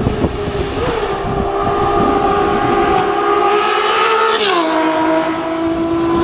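Six-cylinder engine running at steady revs, its note creeping slightly higher, then dropping in pitch at about four and a half seconds in and holding steady at the lower note.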